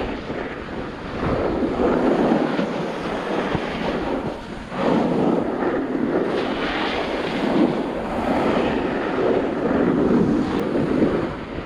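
Wind rushing over the camera microphone during a snowboard run, swelling and easing, with a brief lull about halfway.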